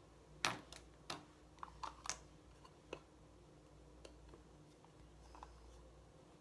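Plastic cosmetic containers being handled: a quick run of sharp clicks and taps in the first three seconds, the loudest about half a second in, then a few faint ticks.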